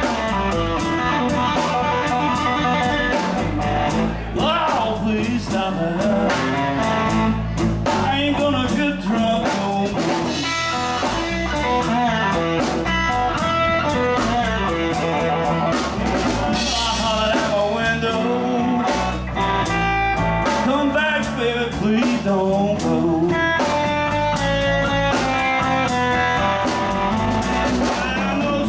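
Live blues band playing: electric guitars over a drum kit, with a steady beat.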